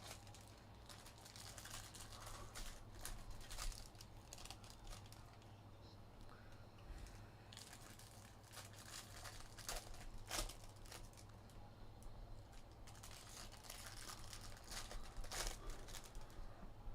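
Trading card pack wrappers crinkling and tearing, and cards being handled, as packs are ripped open: faint, with scattered sharp crackles over a steady low hum.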